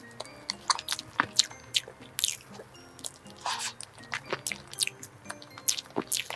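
Close-miked eating sounds of someone chewing and biting a soft cream dessert, with many irregular short mouth clicks and smacks.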